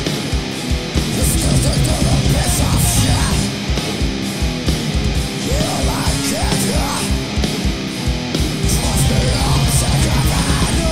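Heavy metal band playing live: distorted electric guitars over a drum kit, with fast, even kick-drum strokes and occasional guitar pitch slides.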